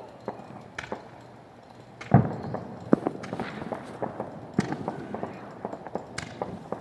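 Fireworks going off: one loud bang about two seconds in, followed by a string of sharp, irregular crackling pops.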